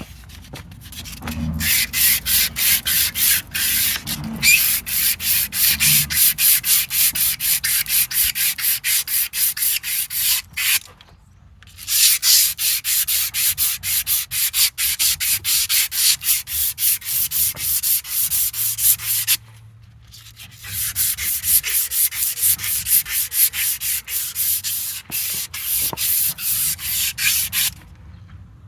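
Emery cloth rubbed briskly back and forth on a steel driveline shaft, in quick even strokes, cleaning up the shaft so a tight-fitting sleeve will slide on. The rubbing comes in three long bouts with short pauses about ten and twenty seconds in.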